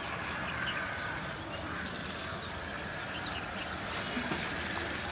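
Birds chirping in short scattered calls over a steady outdoor background noise.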